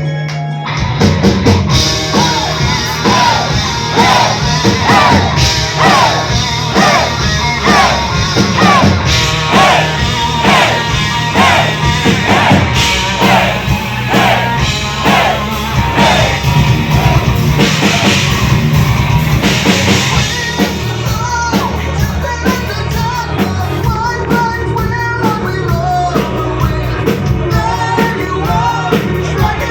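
Live heavy metal band playing a parody power-metal song: drum kit, distorted guitars and bass with a sung lead vocal line, the full band coming in right at the start.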